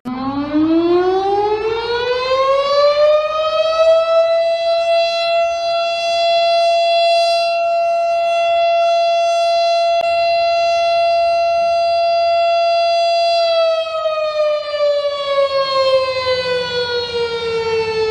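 Civil-defense-style outdoor warning siren winding up from a low pitch to a steady tone over about four seconds, holding that tone for about nine seconds, then winding slowly down.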